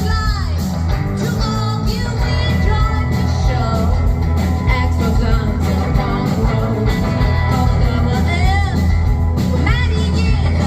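Live rockabilly band playing a driving rock-and-roll number, with a singer's voice over a steady, loud bass-heavy beat.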